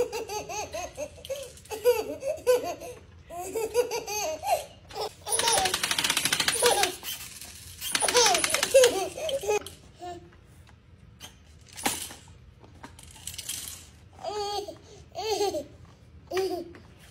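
A baby laughing in repeated bursts of giggles and breathy laughs, with a quieter pause after the middle before a few more giggles near the end.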